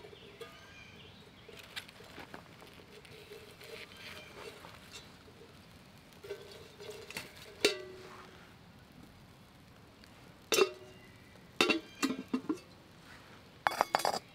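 Stainless steel camp cookware being handled: sharp metal clinks and knocks of a pot, cup and lid being picked up and set down. The knocks are scattered, with a cluster of them in the last few seconds, the loudest of them near the end.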